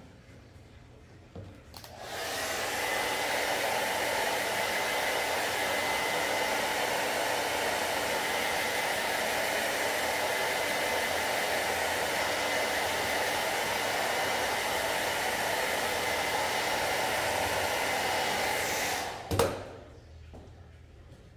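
Handheld hair dryer switched on about two seconds in and running steadily, blowing over freshly screen-printed ink on a T-shirt to dry it. It stops near the end, followed by a sharp knock.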